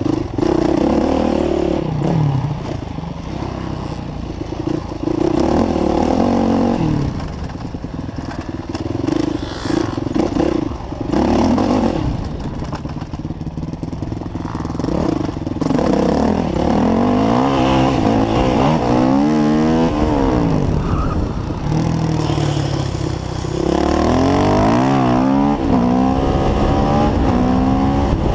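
Yamaha YZ450F's single-cylinder four-stroke engine heard close up from the handlebars, revving up and falling back again and again under throttle. The pitch sweeps up and down quickly several times in the second half.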